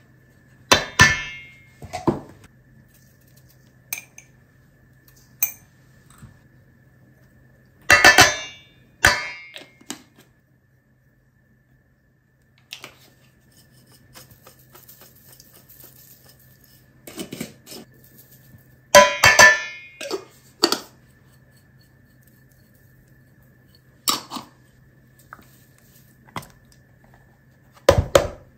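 Kitchen clatter: glass spice jars and containers clinking and knocking against a stainless steel mixing bowl and the countertop. There are about nine separate knocks a few seconds apart, the loudest about eight seconds in and again near the middle.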